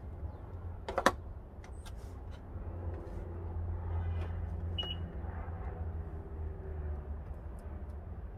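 Plastic trim pry tools clicking and scraping as they work under a Honda badge to pry it off, with one sharp click about a second in, over a steady low rumble.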